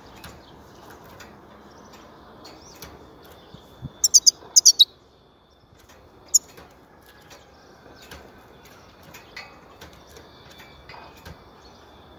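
European goldfinch in a cage calling: a quick run of about six sharp, high notes about four seconds in, one more a second and a half later, and scattered soft twitters and small clicks around them, with wing flutters as it moves about the cage.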